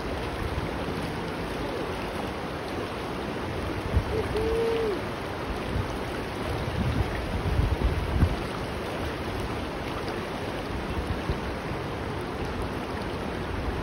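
Shallow river water rushing steadily over a rocky riffle. A brief whistle-like tone sounds about four seconds in, and a few low rumbles hit the microphone around seven to eight seconds in.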